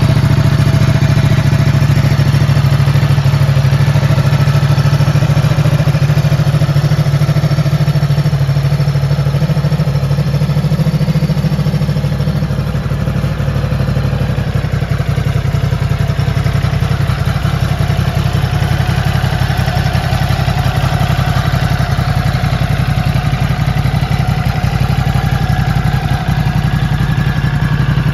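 Ducati Multistrada 950's 937 cc Testastretta L-twin engine idling steadily.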